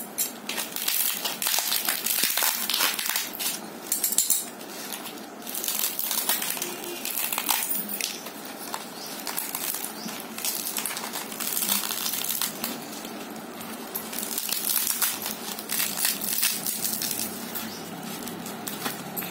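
Dried ridge gourd being cracked and torn apart by hand: the dry shell crackles and crunches, with seeds and bits of shell dropping onto a hard floor, in many small clicks.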